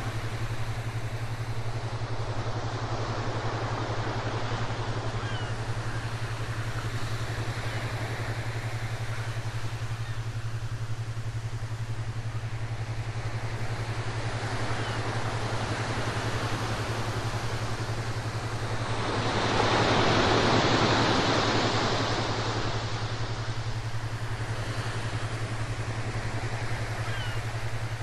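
Ocean waves washing in and ebbing away, one wave swelling loudest about twenty seconds in, over a steady low hum.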